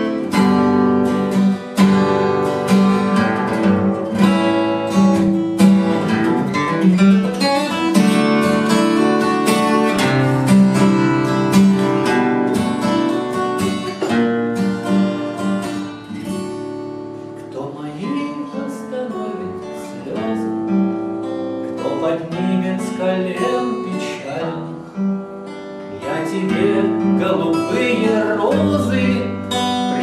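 Solo steel-string acoustic guitar playing an instrumental passage of many picked notes and chords, growing a little softer in the middle and louder again near the end.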